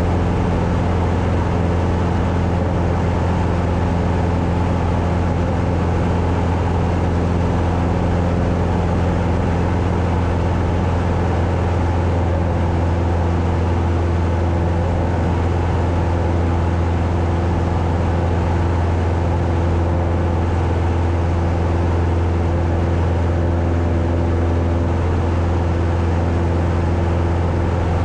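Cessna 172's piston engine and propeller running in a steady, unchanging drone.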